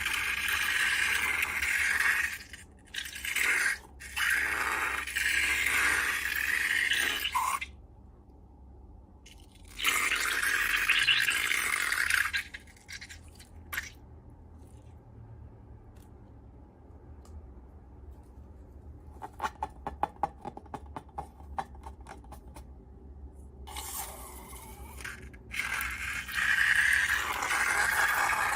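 Slime-making sounds: slime being scraped and stirred with a tool in bursts of a few seconds, with pauses between. About two-thirds of the way through comes a stretch of fast, fine crackling.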